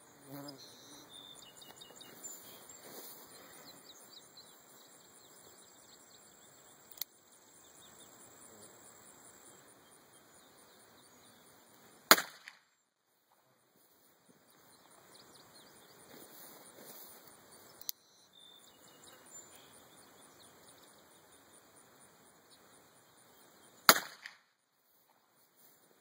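Two sharp shots from a Taurus Tracker 990 nine-shot .22 LR revolver firing Federal bulk-pack ammunition, about twelve seconds apart. A much fainter click comes about five seconds before each shot.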